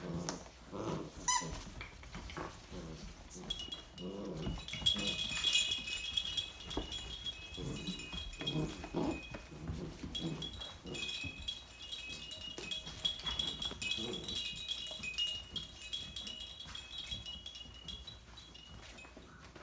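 Basset hound puppies making short, low play growls and grunts as they wrestle and tug at toys. From about three seconds in, a high, tinkling, chime-like ringing runs on, with a brief break about halfway.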